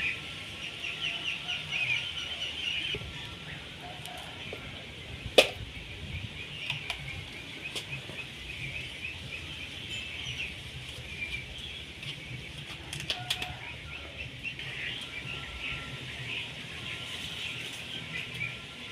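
Many small birds chirping over and over in the background, busiest in the first three seconds. There is one sharp knock about five seconds in and a few lighter clicks later.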